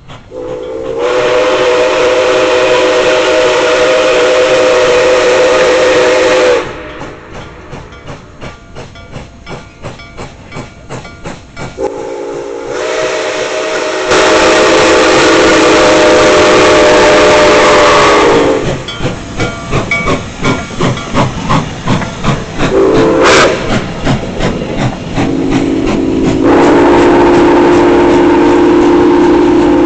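Nickel Plate Road 765, a 2-8-4 Berkshire steam locomotive, sounding its chime whistle as it pulls away: two long blasts, a short one and another long one, the pattern of a grade-crossing signal. Each blast is several notes together, with a hiss of steam. Between the blasts come the locomotive's exhaust chuffs, quickening as the train gathers speed.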